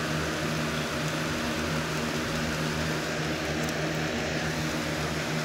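Box fan running close by, a steady hum with a constant rush of air.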